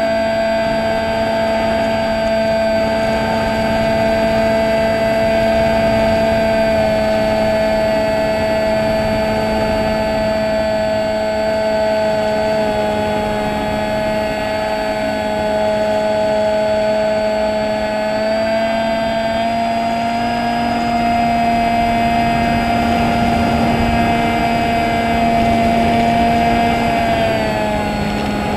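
Electric motor and propeller of a fixed-wing drone running at cruise throttle: a steady whine of several pitches over a rushing haze. The pitch steps up slightly about two-thirds of the way through and falls near the end as the throttle eases.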